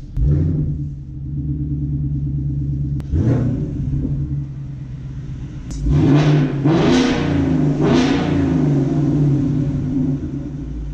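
2018 Mustang GT's 5.0-litre V8, fitted with a CORSA active exhaust, idling and revved in short throttle blips: one near the start, one about three seconds in, and a louder run of three between about six and eight seconds in. The exhaust note is one the owner calls fantastic.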